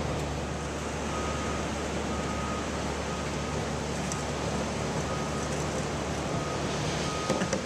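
A heavy machine's engine running steadily while a reversing alarm beeps about once a second. A few sharp knocks come near the end.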